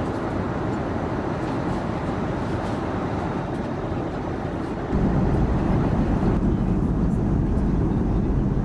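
Airbus A330-300 cabin noise in flight: a steady rumbling roar of engines and airflow. About five seconds in it steps suddenly louder and deeper.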